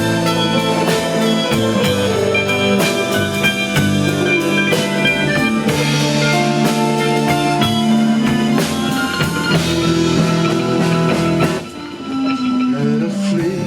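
A rock band playing an instrumental passage without vocals, with drum kit and guitar. The band briefly drops back about twelve seconds in, then comes in again.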